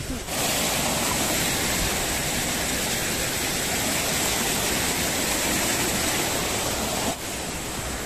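Steady rush of water from a small rocky stream cascade, an even hiss that eases slightly about seven seconds in.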